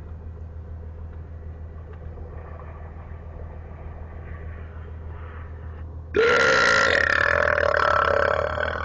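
A low steady hum, then about six seconds in a long, loud belch cuts in abruptly over a CB radio and is still going at the end.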